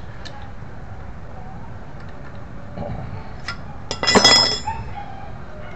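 Metal tools and parts clinking as a ring spanner works the bolts of a scooter's CVT clutch assembly: a few light ticks, then a brief ringing metallic clatter about four seconds in.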